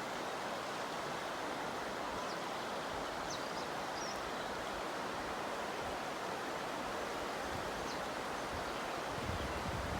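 Steady rush of flowing floodwater, with a few faint high chirps over it and wind buffeting the microphone near the end.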